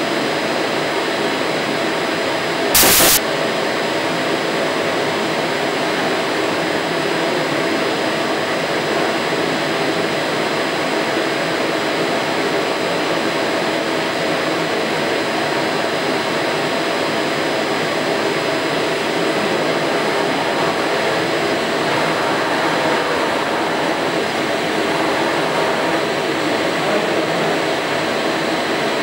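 Laser powder-bed metal 3D printer running: a steady, even rush of machine noise with faint steady high tones over it, and a short loud burst of noise about three seconds in.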